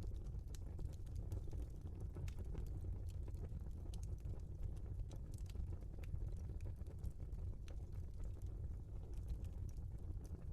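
Wood fire burning in a fireplace: irregular sharp crackles and pops over a low, steady rumble.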